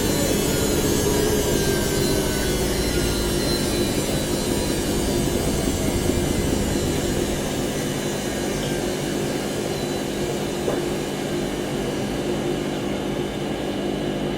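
Washing machine on its spin cycle: a steady whirring hum with hiss from the spinning drum. Its pitch slowly falls and it gets a little quieter as the drum slows down.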